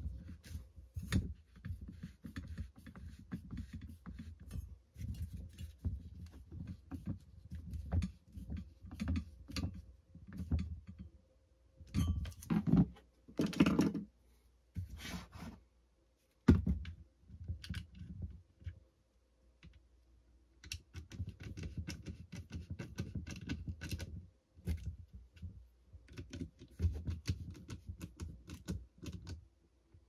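Handling noise from a DeWalt 20V drill body converted to an air horn as it is turned over and worked on by hand. It is a continual irregular run of small plastic clicks, taps and knocks with low thumps, and the horn is not sounded.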